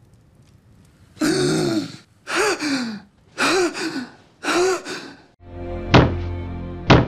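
A man gasping hard for breath four times in quick succession as he jolts awake, each gasp with a groan of voice in it. A short musical sting follows, with two heavy hits about a second apart.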